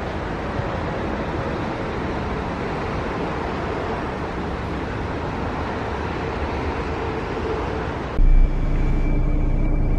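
Steady rushing noise of a regional train passing along the line with river water and wind, a faint wavering tone in it. About eight seconds in it cuts abruptly to the louder, low steady hum of a bus interior with a thin high whine.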